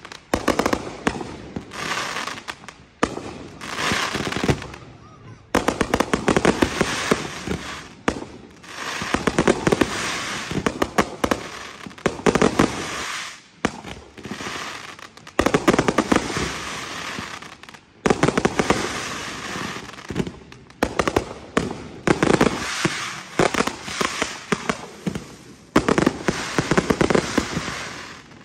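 Fireworks going off in rapid volleys of pops and crackling, one run of shots after another with brief lulls between them.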